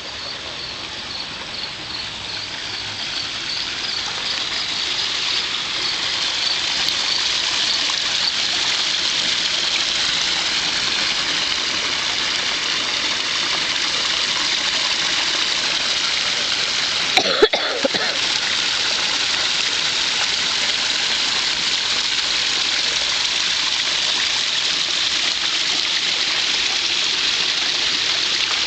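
Backyard pond waterfall splashing into the pond: a steady rush of water that grows louder over the first several seconds. A faint, high, rhythmic chirping runs through the first several seconds, and there is a brief knock about 17 seconds in.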